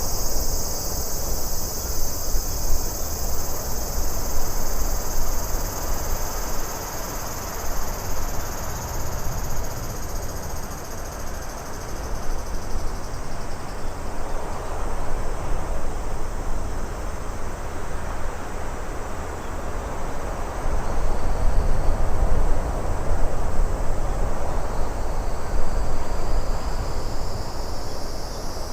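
Nature ambience of a cricket chorus high above a steady rushing wash with a deep low rumble. The crickets fade out a little under halfway and come back near the end.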